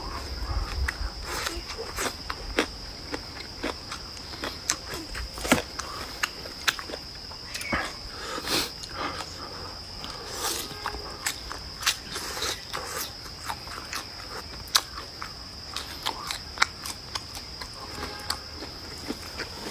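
Close-miked eating sounds: irregular short clicks, smacks and crunches of biting and chewing food, over a steady high-pitched tone in the background.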